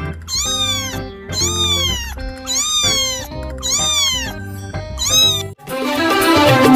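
A cat meowing over and over, about one drawn-out falling meow a second, over background music. Near the end the audio cuts to different music with a wavering melody.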